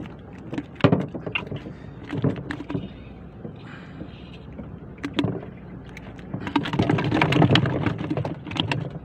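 Irregular knocks, clicks and rustling as a freshly caught fish is unhooked and the fishing handline and hook are handled, busiest and loudest near the end, over a steady low hum.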